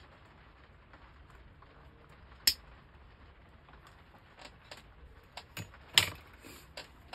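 Sharp clicks and light knocks of hobby tools being picked up and set down on a workbench. One loud click comes about two and a half seconds in, then a run of smaller clicks and the loudest knock about six seconds in.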